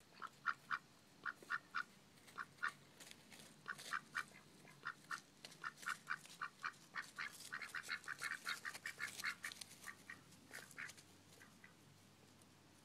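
Domestic drake quacking: a long series of short quacks that come faster and crowd together midway, then thin out and stop near the end.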